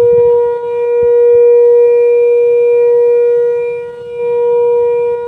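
Loud, steady one-pitch hum with overtones from a Volvo truck's air system with the engine off, dipping briefly about four seconds in. The driver takes it for air humming through a valve, and says it goes away when the brake pedal is pressed.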